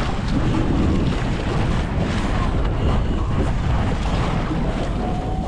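Wind buffeting the microphone on a sportfishing boat's deck, over a dense low rumble of boat and sea.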